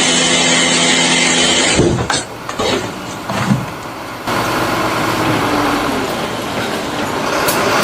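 Vehicle or machinery noise: a steady sound of several held tones that cuts off abruptly about two seconds in, then, after a quieter stretch, a different steady rumble from about four seconds in.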